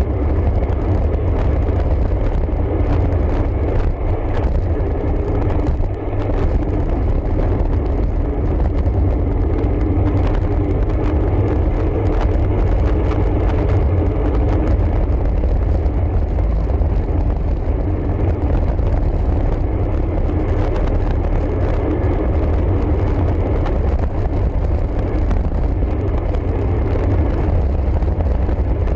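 Steady wind rush buffeting the microphone while a road bike is ridden, a loud low rumble without pauses.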